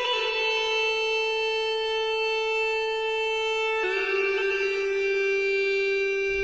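Background music of slow, sustained held notes, stepping down to a lower note just before four seconds in.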